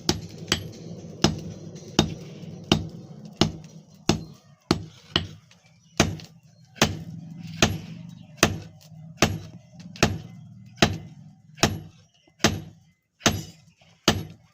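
Blacksmith's hammer striking an iron blank on an anvil in a steady rhythm, a little more than one blow a second, each with a short metallic ring. A low hum runs under the blows and fades out about two thirds of the way through.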